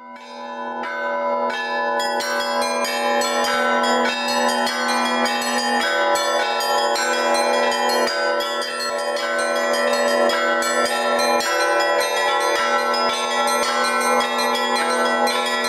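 Russian Orthodox church bells rung from one belfry: quick, dense strokes of the small bells over the held, overlapping ringing of the larger bells. The peal swells in over the first two seconds, then keeps going at full strength.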